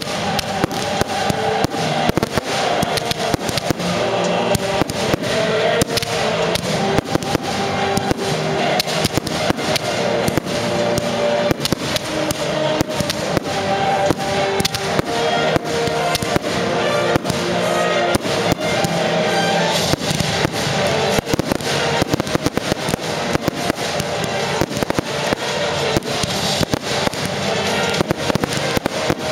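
Fireworks display firing without a break: a dense run of bangs and crackles, several a second, from shells and rising comets. Music plays underneath.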